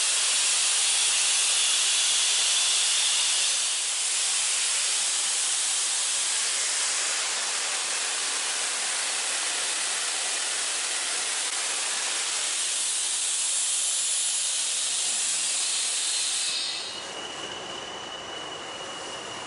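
Steady, loud hiss of steam escaping from the standing steam locomotive 60163 Tornado, an LNER Peppercorn A1 Pacific. Near the end it gives way to the quieter low rumble of an approaching train, with a thin steady squeal over it.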